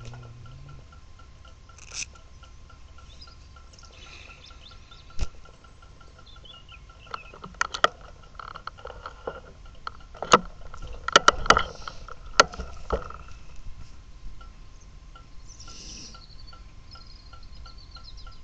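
Sharp close-up clicks and knocks of handling, bunched in the middle, over faint birdsong and a soft, even ticking; no engine running.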